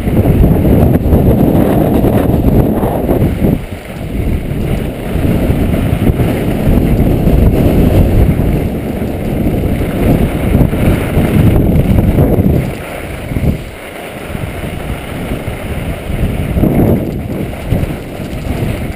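Wind buffeting an action camera's microphone during a fast run down a ski slope: a loud, rough rumble that rises and falls with speed, easing briefly about four seconds in and again around thirteen seconds.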